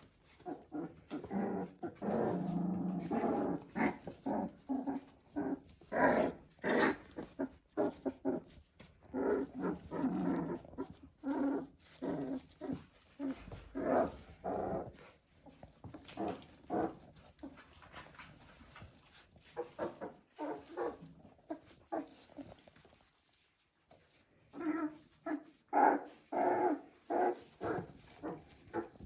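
Three-week-old border collie puppies vocalising in many short calls, coming in clusters with a brief lull a little before the end.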